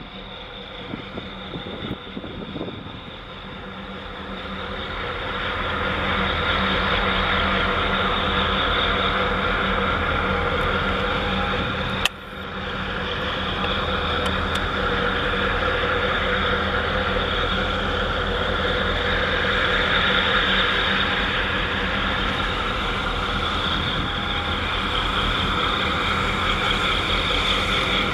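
Steady low hum of heavy marine diesel engines from a passing container ship and its escort tug. It grows louder over the first few seconds, then holds steady. A single sharp click comes about halfway through.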